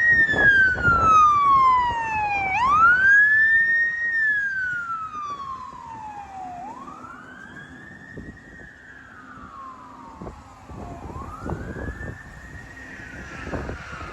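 Fire engine siren wailing, each cycle a quick rise then a slower fall in pitch, repeating about every four seconds. It is loudest at first and fades as the truck moves away, with its engine noise strongest in the first couple of seconds.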